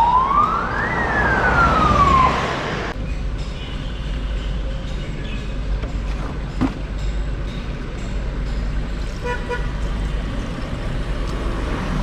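A siren-like wailing tone swoops up to a high pitch and slides back down, then cuts off abruptly under three seconds in. After that only a steady hiss of background noise remains, with a single knock a little past halfway.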